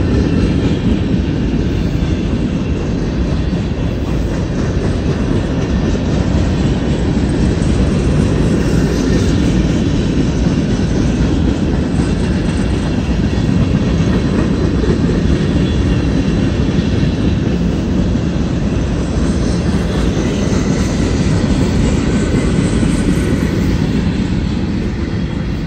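Freight train of tank cars and covered coil cars rolling past, its steel wheels on the rails making a loud, steady rumble.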